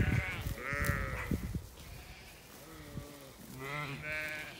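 Sheep bleating three or four times, each call short and wavering, with a low rumble on the microphone during the first second or so.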